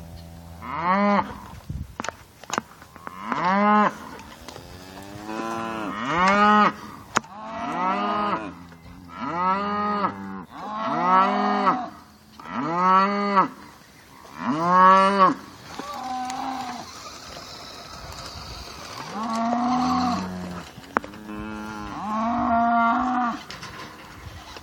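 Cattle mooing over and over, a call every second or two, each moo rising and then falling in pitch.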